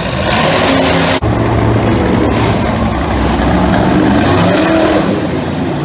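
Bigfoot monster truck's engine running loud and revving, its pitch rising and falling in repeated surges as the truck drives, with a very brief cut-out about a second in.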